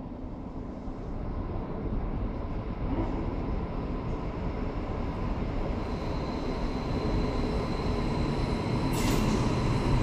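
NSB electric multiple-unit passenger train arriving at an underground station platform, its rumble growing steadily louder as it comes in, echoing in the tunnel. A thin high whine joins about six seconds in, and a short burst of noise follows near the end.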